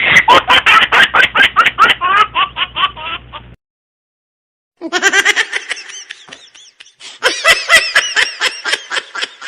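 Laughter: a run of quick, repeated ha-ha pulses that stops abruptly about three and a half seconds in, then after about a second of silence a second laughing clip starts and grows louder near the end.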